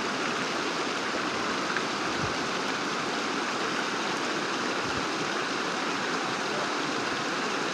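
Steady rush of high, fast-flowing water, swollen by heavy rain.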